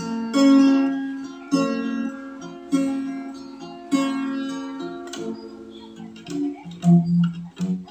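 Small acoustic guitar fingerpicked: four chords struck about a second apart, each left to ring and fade, then quicker, softer notes near the end.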